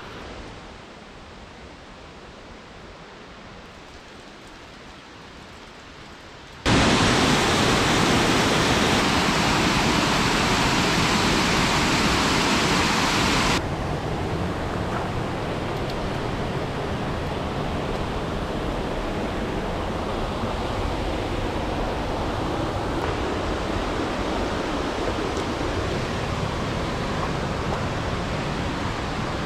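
Steady rushing outdoor noise with no distinct events. It jumps abruptly louder about seven seconds in and drops back partway about seven seconds later.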